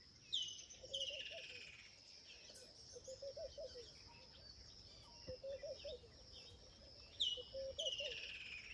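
Bush ambience: a steady high-pitched insect drone, with birds giving loud calls that fall in pitch, twice near the start and twice near the end. A low, short warbling call of a few notes repeats about every two seconds.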